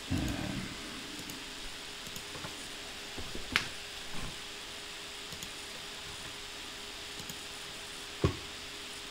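Steady microphone hiss with a faint hum, broken by a short low thump at the start and two sharp clicks, one about three and a half seconds in and one near the end, from a computer mouse being clicked while navigating.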